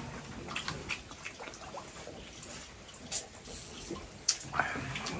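Quiet table sounds during a meal: a few faint clicks and taps of chopsticks and tableware, then a short sip from a small glass near the end.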